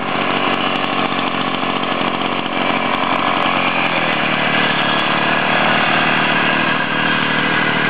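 Small engine of a homemade tractor built from a two-wheel walking tractor, running steadily as it drives slowly over the course.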